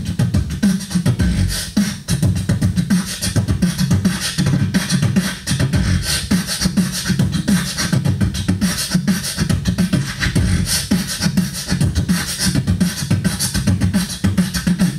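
Beatboxing through a handheld microphone and PA: a fast, continuous vocal-percussion rhythm of deep bass kicks and sharp snare and hi-hat clicks. It cuts off abruptly at the end.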